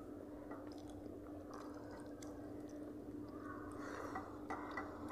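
Eating by hand from steel plates: chewing and fingers squishing rice and curry, with small clicks against the plates and a denser run of them near the end. A steady low hum runs underneath.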